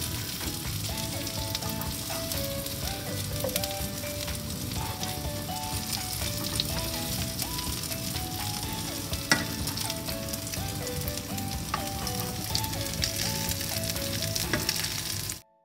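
Coated prawns shallow-frying in oil in a pan, giving a steady sizzle with a few light clicks. The sound cuts off suddenly near the end.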